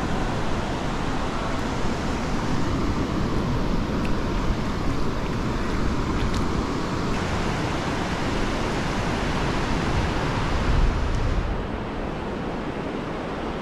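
Ocean surf washing on a sandy beach, heard as a steady rushing noise, with wind buffeting the microphone; it turns a little quieter near the end.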